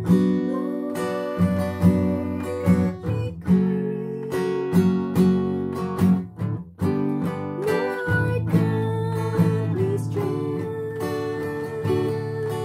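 Acoustic guitar strummed through slow chords while a woman sings a devotional song, with a short break about seven seconds in.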